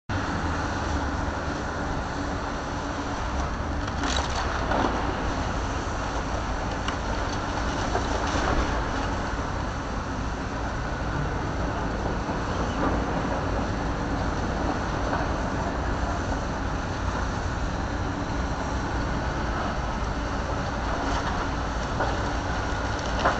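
A tracked excavator running as it demolishes a brick building, under steady street traffic noise, with a few louder crunches of rubble about four and eight seconds in.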